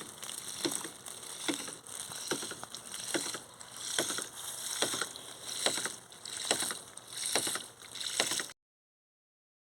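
A 50 mm PVC hydraulic ram pump running: its waste valve knocks shut in a steady rhythm a little faster than once a second, each knock followed by a rush of water. Each knock is the water-hammer pulse that drives water up the delivery hose. The sound cuts off suddenly near the end.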